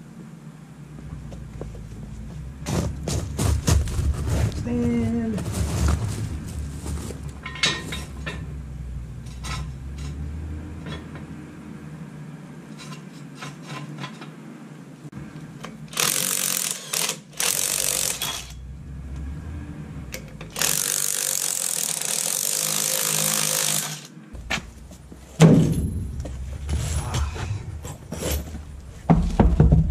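Cordless impact wrench rattling lug nuts off a truck's rear wheel: two short bursts, then one longer run of about three seconds. Scattered clanks and knocks come before it from the jack and tools, and a heavy thud comes near the end as the big tire comes off.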